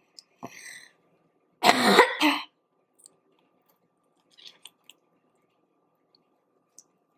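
A woman coughing to clear her throat, one loud rough burst in two or three pulses about two seconds in, followed by a few faint clicks.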